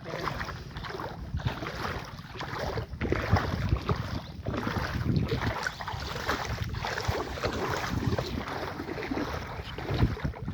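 Wind buffeting the microphone: a continuous, uneven rumble that rises and falls in gusts.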